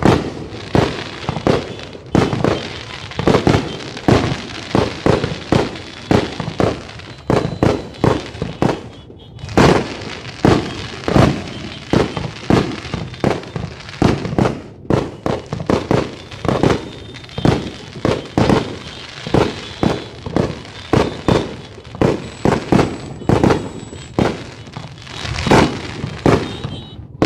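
Aerial fireworks going off in rapid, continuous succession: sharp bangs and booms, several a second, with two very brief breaks.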